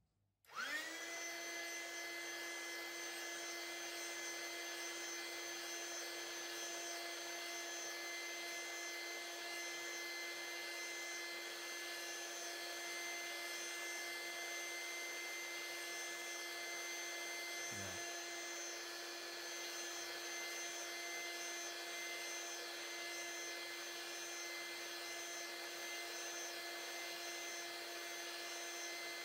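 Small 12-volt electric inflator air pump switched on, its motor spinning up within a moment and then running with a steady, even hum.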